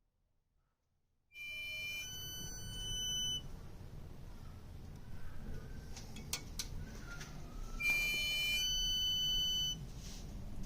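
Unexplained high electronic whine from a switched-off 2016 Chevrolet Malibu: several steady high tones at once, sounding for about two seconds, stopping, then returning for about two seconds near the end, over a low rumble with a few faint clicks in between.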